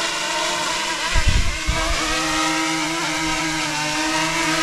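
Quadcopter drone hovering close by and coming down to land, its rotors giving a steady multi-tone whine that wavers slightly in pitch. A short, loud low rumble comes about a second in.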